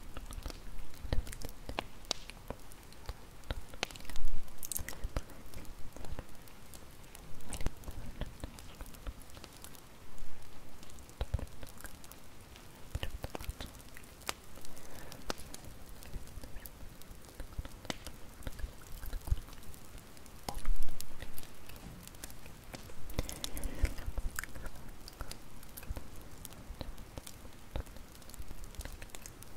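Bonfire crackling: a steady stream of small irregular crackles with a few louder pops and snaps scattered through.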